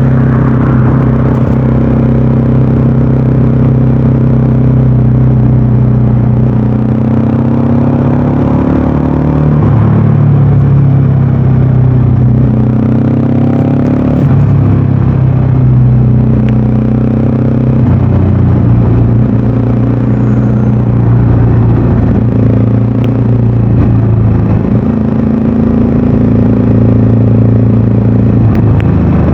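VOGE 300DS single-cylinder engine pulling under load while the motorcycle rides at highway speed. The engine note holds steady, then jumps to a new pitch several times as the rider shifts gears and accelerates.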